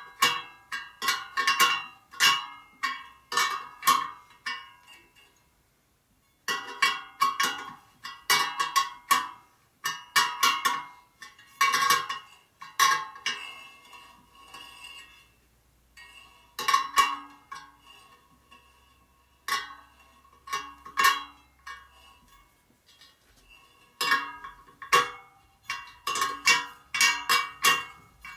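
Steel wire spokes of a laced motorcycle wheel clinking and ringing as a spoke wrench strikes and turns them during truing. The strikes come in quick runs of several a second, each leaving a short bell-like ring, with brief pauses between runs.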